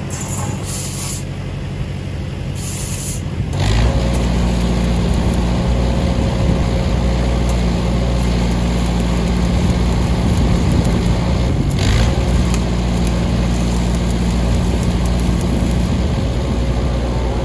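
An engine running steadily, getting louder about four seconds in and then holding an even note.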